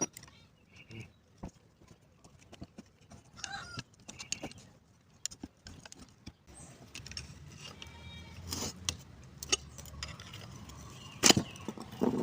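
Metal tools and alternator parts clicking and clinking irregularly as a Bosch alternator is taken apart, with one sharp metallic knock near the end.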